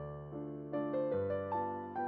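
Background piano music: a gentle melody of single notes over held bass notes.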